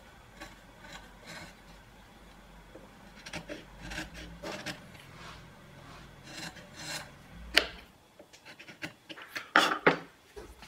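Hand tool working wood: a run of irregular rasping, scraping strokes, with two sharper, louder strokes near the end.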